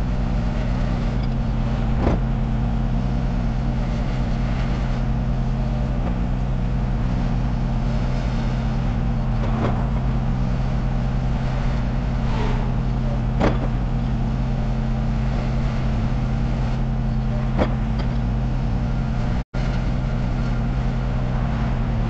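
Steady engine drone with a few sharp knocks or clanks scattered through it; the sound cuts out for an instant near the end.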